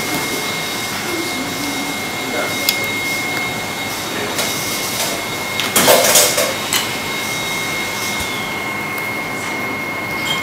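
Kitchen room tone: a steady machine hiss with a constant high whine, scattered light clicks, and a brief louder scuffing burst about six seconds in.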